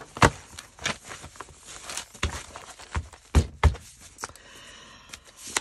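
Paper and craft supplies being handled on a tabletop: irregular sharp taps and knocks, the loudest three about a quarter second in and twice in quick succession past the middle, with a softer rubbing of paper near the end.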